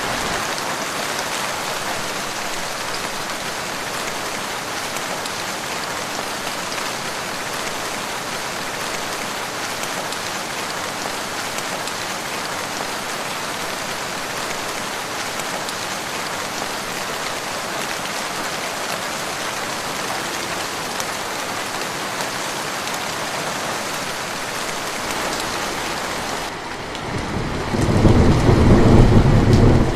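Steady rain falling, an even hiss. Near the end a louder, deep rumble of thunder rolls in.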